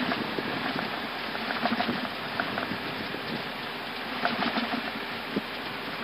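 Airbus A320 cockpit during the landing rollout: a steady rushing noise from the engines in reverse thrust and the wheels rolling on the runway as the aircraft decelerates, with scattered small rattles and clicks.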